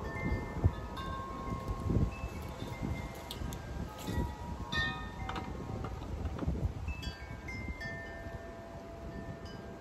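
Wind chimes ringing: scattered bell-like notes at several different pitches, struck at irregular moments, each ringing on and overlapping the next.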